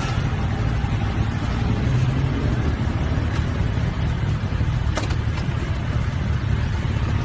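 Steady low rumble of motorcycle traffic heard while riding alongside: engines running with road and wind noise. A short sharp click about five seconds in.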